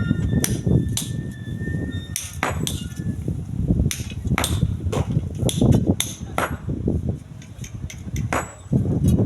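Irregular sharp knocks and clinks of hard objects striking, at times several a second, over a constant low rumble of strong wind buffeting the microphone.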